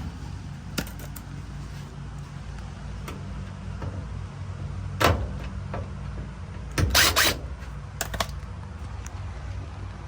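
Sharp clacks and short rattles of metal parts and tools being handled while a dryer is taken apart. One strong clack comes about five seconds in, and the loudest rattling cluster about seven seconds in. A steady low hum runs underneath.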